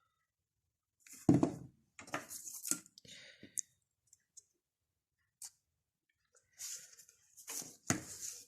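Irregular clicks, knocks and scraping of small objects being handled close to the microphone, with short quiet gaps between; the loudest is a knock about a second in, and another comes near the end.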